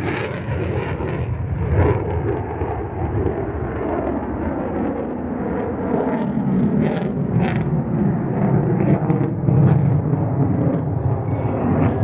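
F-35B jet engine (Pratt & Whitney F135 afterburning turbofan) at high power in afterburner during a loop: a continuous deep rumble that swells somewhat in the second half, with scattered sharp crackles.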